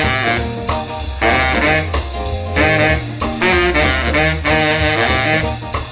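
Baritone saxophone playing a jazz line in short phrases with brief gaps between them, over a band with a steady bass part underneath.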